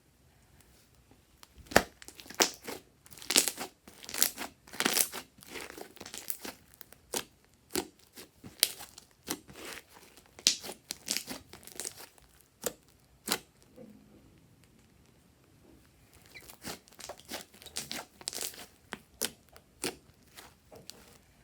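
Slime being squeezed and kneaded by hand, giving irregular sharp crackling clicks and pops in two dense spells with a short lull in between.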